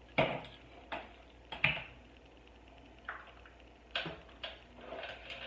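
Spice jar and measuring spoon clicking and tapping as half a teaspoon of nutmeg is measured out: a string of short, sharp clicks and knocks, irregularly spaced.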